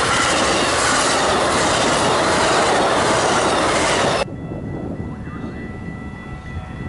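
Amtrak Empire Builder's bi-level Superliner passenger cars passing at speed, a loud steady rush of wheels on rail that cuts off abruptly about four seconds in. After the cut, grade-crossing bells ring faintly.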